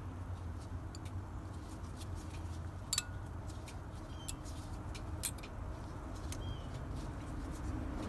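Light metallic clicks and taps of new rear brake pads and their thin metal shims being handled and pressed together by hand, the loudest about three and five seconds in, over a steady low rumble.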